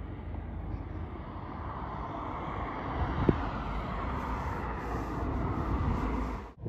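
Steady rumbling noise of a moving vehicle that slowly grows louder, with one short knock about three seconds in. It cuts off abruptly just before the end.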